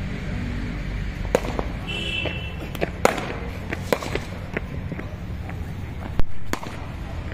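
Sharp cracks of cricket bats striking hard leather balls in practice nets, several scattered through, over a steady low rumble, with one louder crack near the end.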